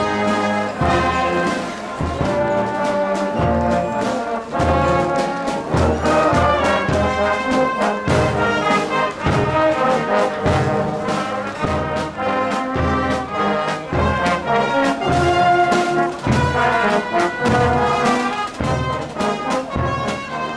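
Marching brass band playing a tune, trombones and trumpets carrying the melody over a steady low bass beat.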